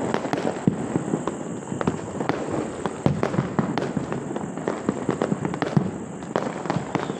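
Fireworks and firecrackers going off on all sides at a distance: a dense, unbroken run of overlapping pops and bangs, with one sharper bang a little before six seconds in.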